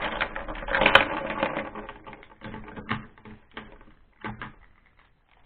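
Mighty Beanz plastic bean toys clicking and clattering against a red plastic track as they are loaded onto it one after another: a dense run of clicks over the first two seconds, then a few separate clicks.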